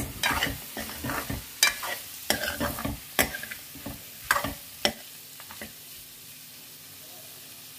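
Metal ladle stirring and scraping frying buffalo mince with peas and carrots around a steel kadai, over a steady sizzle. The scraping stops about five seconds in, leaving the sizzle.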